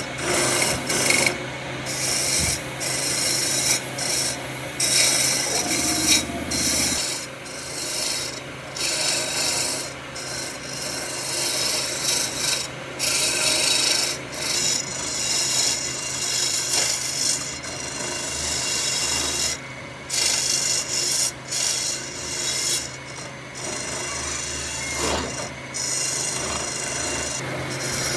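Wood being abraded by hand, a scratchy rasping in repeated strokes with short breaks between them, as in sanding or filing a wooden piece.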